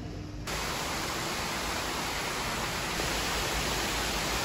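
Steady, even rushing hiss of an indoor swimming pool hall. It cuts in suddenly about half a second in, after a quieter room hum with a faint steady tone.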